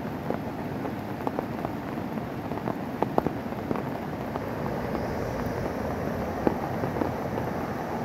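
Steady rain falling, with large drops landing close by as irregular sharp taps, a few louder than the rest.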